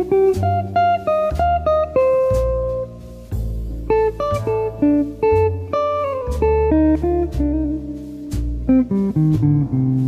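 Background music: a plucked guitar tune, one note after another over a low bass line.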